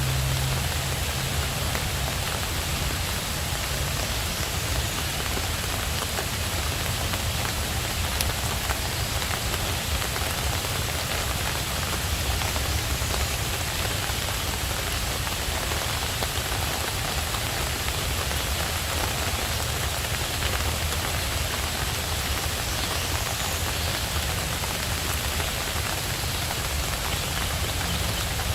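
Steady rain falling, an even hiss with a constant low rumble beneath it and no distinct pops.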